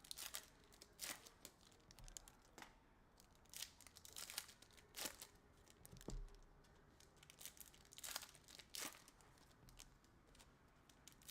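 Foil hockey-card pack wrappers being torn open and crinkled, with cards handled, heard as a faint, irregular string of short rustles and tears. A soft knock comes about six seconds in.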